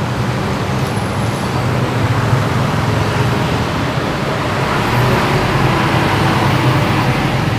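A motor vehicle's engine running steadily, with a low-pitched drone.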